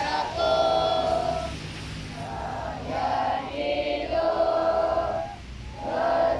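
A group of children singing together in unison, in phrases of long held notes with short breaks between them.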